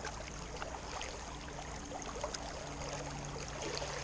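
Creek water running steadily, the rushing of a fast, high-flowing stream.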